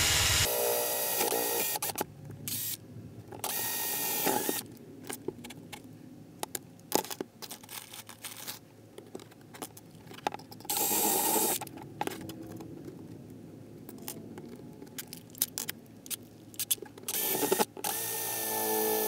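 Makita cordless drill with a 7/64 bit run in several short bursts, drilling holes through a laptop's metal lid, with clicks and scraping between the bursts. The last run, starting near the end, is the longest and steadiest.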